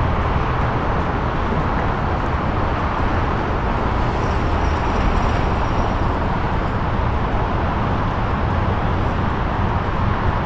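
Steady driving noise of a vehicle on the road: a low engine hum under an even rush of road noise.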